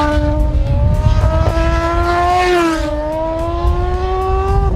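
Rotary-engined racing motorcycle accelerating on a track. The engine note climbs, drops at a gear change a little under three seconds in, then climbs again.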